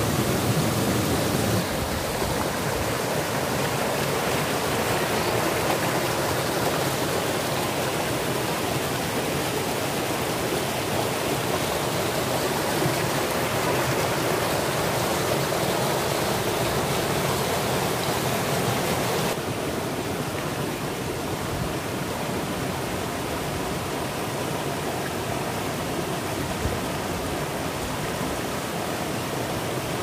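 Rocky mountain stream rushing over boulders in small cascades, a steady full rush of water. The sound changes abruptly twice, a little under two seconds in and again about two-thirds of the way through, becoming slightly quieter after the second change.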